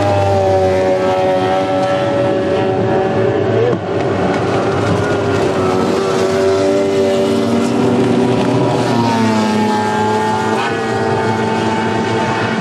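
Racing outboard motors running at high revs, giving a steady multi-pitched engine whine. About nine seconds in, the pitch slides down.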